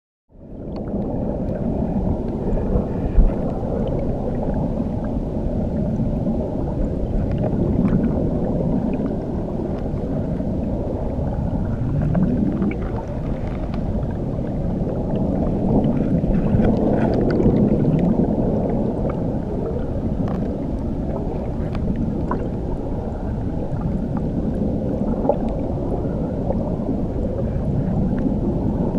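Muffled underwater rumble of a waterfall heard from beneath the surface: a steady, dense churning of water with slow swirling swells, dull with no treble. It fades in just after the start.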